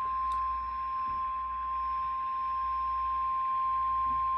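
Emergency alert attention tone: a single steady high beep near 1 kHz, the 1050 Hz warning alarm tone of NOAA Weather Radio, held without a break. It signals that a weather warning message is about to follow.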